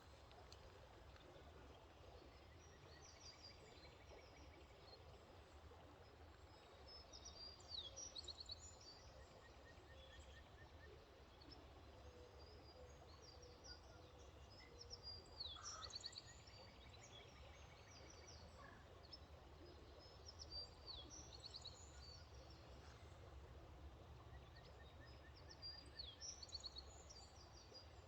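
Faint outdoor ambience: wild birds singing in short chirping phrases every few seconds over a low steady rumble.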